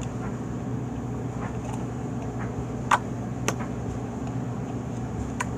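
A steady low hum runs under a few short sharp clicks from handling a plastic slime container as slime is worked out of it. The loudest click comes about three seconds in and another follows half a second later.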